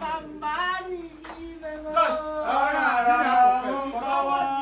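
Several men and women singing together, with long held notes and overlapping voices; a group worship song.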